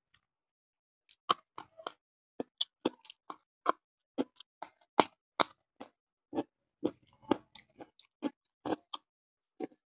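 Close-miked chewing of a mouthful eaten by hand: a run of short wet clicks and smacks, about two to three a second, starting about a second in.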